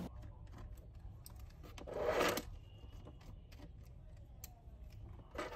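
Faint small clicks and ticks of a screwdriver working the screen-mounting screws of an Asus laptop lid, with a brief louder rustle about two seconds in and another near the end.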